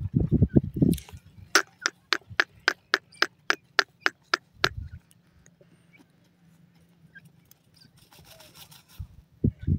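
Young francolins dust-bathing: wings fluttering and bodies scuffling in loose dry soil in short, low, thudding flurries, in the first second, again about five seconds in and near the end. Between them comes a quick run of about a dozen sharp ticks, roughly four a second.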